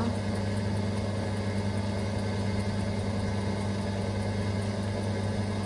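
Fuel station pump running with a steady low hum as it fills a campervan's tank.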